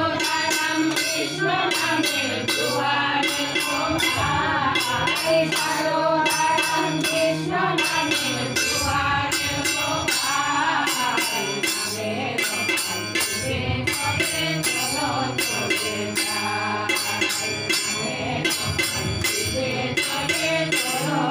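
A group of women singing a devotional song together, accompanied by a harmonium's held reedy chords and a steady beat of percussion.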